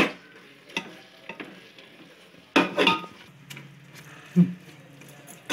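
A perforated steel spoon stirring and scraping thick pumpkin halwa against a steel pot, with a few sharp scrapes, the loudest two and a half to three seconds in, over a faint sizzle as the mixture cooks down with melting khoa.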